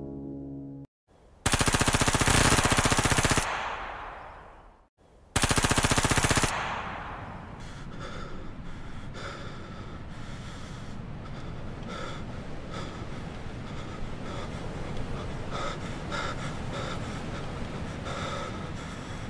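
Two long bursts of automatic gunfire, each a couple of seconds of rapid, evenly spaced shots that ring out as they fade. Then a steady hiss with repeated gasping breaths.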